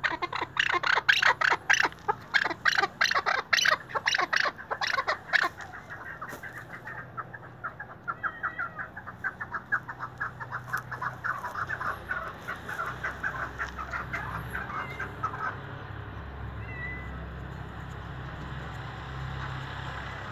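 A chukar partridge calls a rapid series of clucking chuck notes. The notes are loud at first, then come faster and softer, and stop about fifteen seconds in.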